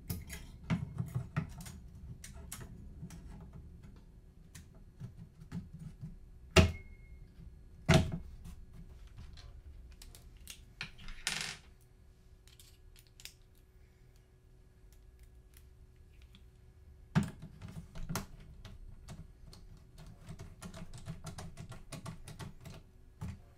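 Camera parts being handled and fitted back together: scattered light plastic clicks and taps, with a few sharper knocks spread through and a brief scraping rustle about halfway.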